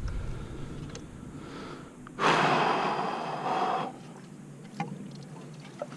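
A person's heavy exhale, a sigh-like rush of breath lasting under two seconds, starting about two seconds in.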